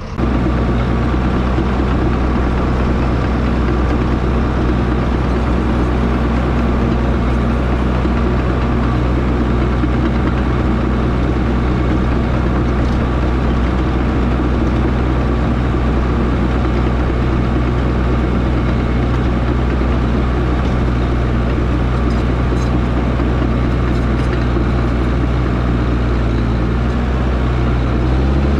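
Diesel engine of heavy earthmoving equipment running at a steady speed, a constant low drone with no revving.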